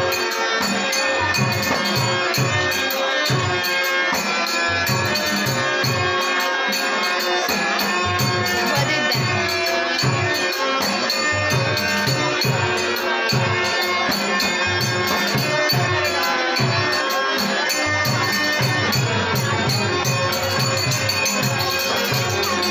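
Dashavatar folk-theatre accompaniment: a harmonium holding sustained chords, a drum beating a steady rhythm of a few strokes a second, and small hand cymbals jingling in time.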